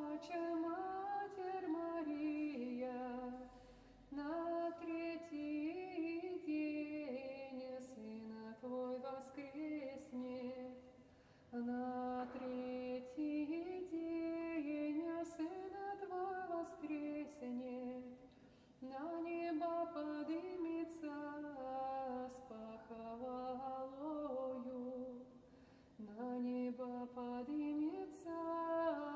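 A woman singing a Russian folk spiritual verse unaccompanied, in a slow, drawn-out melody. Her long phrases are broken by short pauses for breath, about four times.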